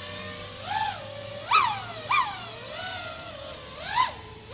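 Brushless motors of an FPV racing quadcopter (iFlight XING 2207 1800kv on a TBS Source 1 frame) whining in flight, the pitch rising sharply and falling back with each throttle punch, several times. The pilot finds the quad hopping and struggling on yaw at its lowered yaw P setting.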